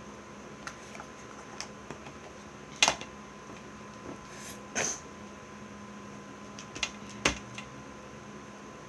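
Scattered clicks and knocks of small play-doh toys and tools being handled on a tabletop, three of them louder than the rest, over a faint steady hum.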